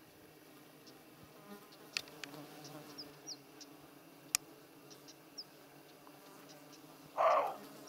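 Flying insects buzzing close by in a steady low drone, with a few faint clicks and short high chirps. About seven seconds in comes a brief, louder rough burst of noise.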